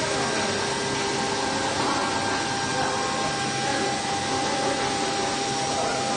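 Large gantry CNC router running while it mills a wooden mould: a steady spindle whine over a continuous rushing noise.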